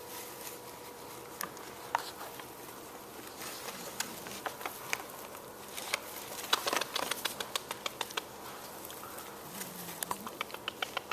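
English bulldog puppy hiccuping, sharp little clicks about a second apart, with quicker runs of clicks about halfway through and again near the end.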